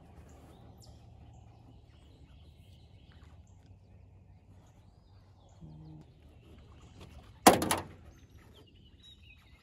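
One sharp splash at the water's surface beside the boat, about seven and a half seconds in and by far the loudest sound; around it only faint outdoor background.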